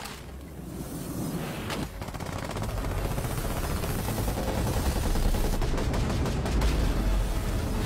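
Rapid, continuous machine-gun fire from several guns, growing louder after about two seconds.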